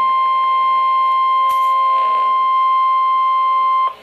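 NOAA Weather Radio 1050 Hz warning alarm tone: one loud, steady high tone that cuts off sharply just before the end, the signal that a warning message follows.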